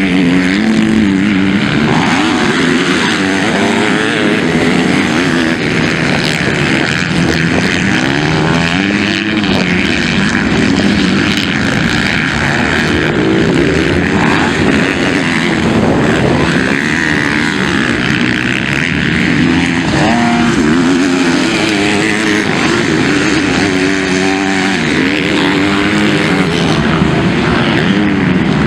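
MX2-class motocross bikes racing. Their engines rev up and drop back over and over as the riders accelerate, shift and roll off, with several engines overlapping.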